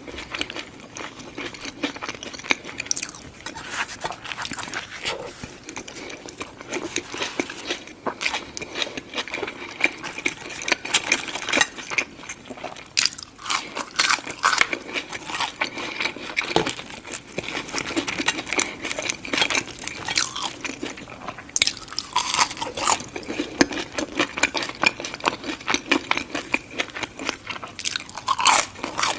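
Close-miked crunching and chewing of fast food, a dense run of crisp bites and crackles.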